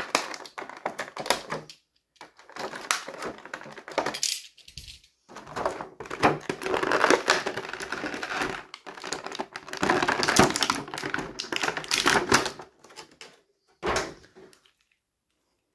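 Snap-off utility knife cutting into a clear plastic blister tray, then the stiff plastic crackling and clicking as it is bent and pulled apart by hand, in several stretches with short pauses.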